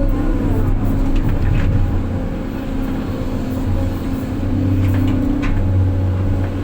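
Six-wheel dump truck's diesel engine running steadily under way, a low hum with a faint whine that wavers slightly in pitch and a few light knocks and rattles.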